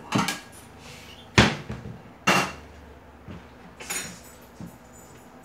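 Kitchen knocks and clatters as a dinner plate is fetched and set on a gas stovetop, likely including a cupboard door. There are two sharp loud knocks about a second and a half and two and a half seconds in, with lighter clicks near the start and around four seconds.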